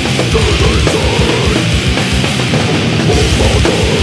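Loud, fast hardcore punk recording: a dense wall of distorted guitars over rapid, pounding kick-drum strikes.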